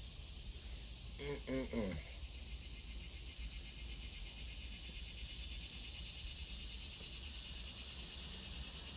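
A faint, steady insect chorus of crickets or similar insects chirring, with a low background hum. About a second in comes a brief low vocal murmur.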